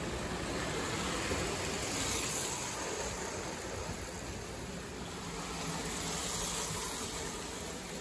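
Lionel postwar O gauge steam locomotive and tinplate freight cars running past on three-rail track: a steady rumble and hiss of the electric motor and wheels on the rails, louder about two seconds in and again near six seconds as the cars pass close.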